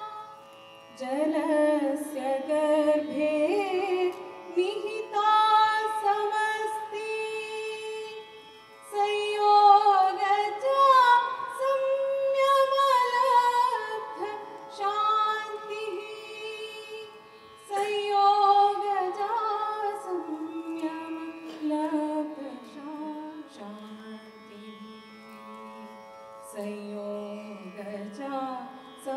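Carnatic-style vocal music: a singing voice carries a slow melody of long held, gliding notes over instrumental accompaniment. It comes in phrases, with short breaks about 9 and 18 seconds in.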